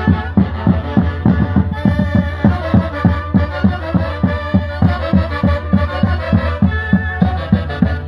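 A live Andean brass-and-reed band playing santiago festival music: saxophones and trumpets carry the tune with a violin, over a drum beaten in a quick, steady rhythm.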